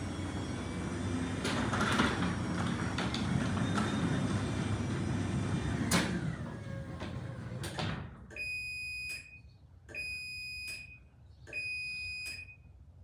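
Sectional garage door travelling on its LiftMaster 8550 opener with rattles and several sharp clanks, as it runs back up after reversing on a wooden block in a safety-reverse test. The door noise cuts off about eight seconds in. A high electronic beep then repeats about every second and a half.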